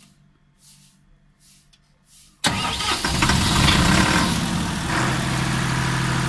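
Standby generator set's engine cranking and firing up suddenly about two and a half seconds in, after near quiet, then settling into a steady run about two seconds later. It started on its own from a looped remote-start command in Auto mode, showing the auto-start function works.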